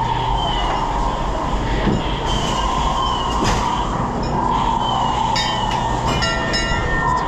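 Steady rumble of a dark-ride boat and its machinery moving through the ride, with a short run of high electronic tones between about five and seven seconds in.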